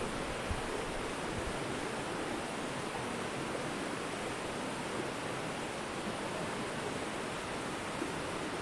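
Mountain river rushing over rocks: a steady, even rush of water, with a little low rumble in the first second or so.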